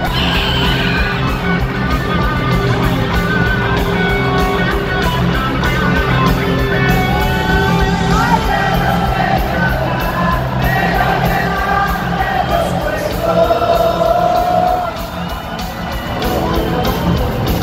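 Rock band playing live in an arena, heard from the audience: electric guitars, bass, keyboards and drums, with the hall's echo. The music drops softer for a moment about fifteen seconds in.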